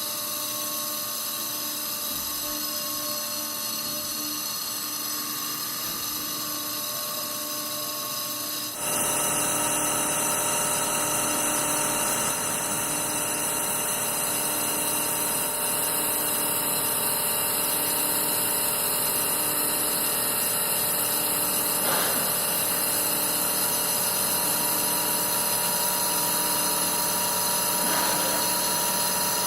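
Gasparini PSG 250/3000 CNC hydraulic press brake running: a steady machine whine with several held tones, which steps up louder and fuller about nine seconds in and holds there.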